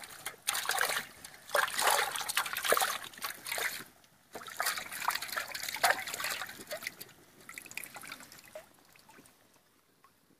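Water splashing and sloshing in a large aluminium pot as hands scrub a skinned goat head under the water. The splashing comes in irregular bursts, breaks off briefly about four seconds in, and dies away over the last few seconds.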